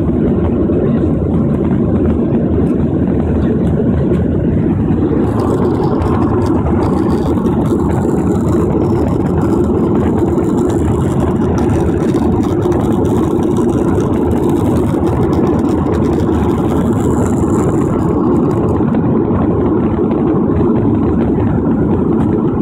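Steady jet engine and airflow noise of a jet airliner climbing after takeoff, heard from inside the passenger cabin.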